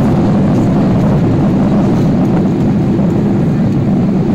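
Loud, steady cabin noise of a Boeing 777-300ER on its landing roll just after touchdown: engine noise and runway rumble heard from inside the cabin as the airliner slows with its spoilers raised.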